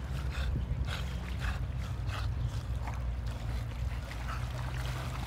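Steady low drone of a distant boat engine on the water, with light splashing from a dog swimming a stick in to the shore.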